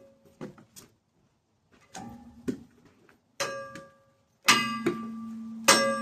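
A struck metal object: a few light knocks, then three sharp clangs in the second half, the last two loudest, each ringing on with a steady tone that slowly dies away.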